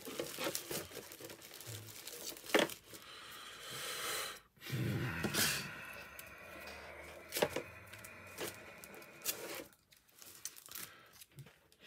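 Foil booster packs and small paper name labels handled and pressed onto a card playmat: crinkling and rustling with a few sharp clicks, and a denser stretch of rustling about halfway through.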